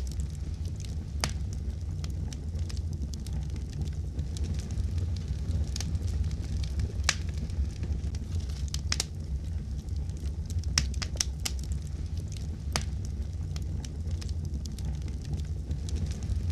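Wood fire crackling in a fireplace: a steady low rumble of burning with irregular sharp pops, several in quick succession about two-thirds of the way through.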